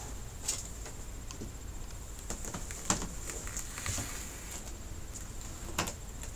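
Handling sounds of a 55-inch LG flat-screen TV being turned over and laid screen-up on a cloth-covered table: scattered light knocks and clicks from the plastic frame, with a dull thump about four seconds in.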